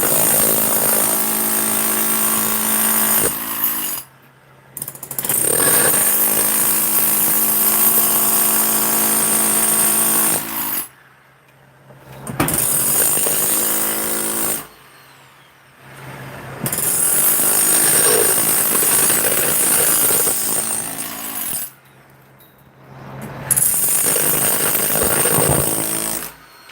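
A power tool, sounding like a hammering demolition-type tool, run in five bursts of a few seconds each with short pauses between.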